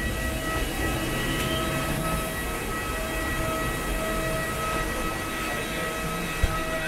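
Steady low machinery drone with several high, steady whining tones over it, heard at the door of a parked airliner and in the enclosed jet bridge. There is one small click near the end.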